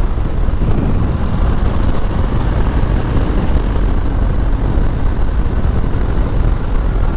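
Steady rush of wind noise on the microphone over a Harley-Davidson Low Rider S's V-twin engine running at highway cruising speed.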